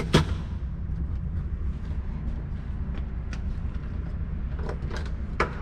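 A handgun and its magazine being handled: one sharp click at the start, then a few lighter clicks and knocks near the end, over a steady low rumble.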